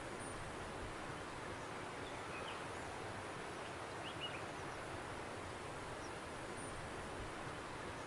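Steady outdoor ambience, an even hiss, with a few faint short bird chirps scattered through it.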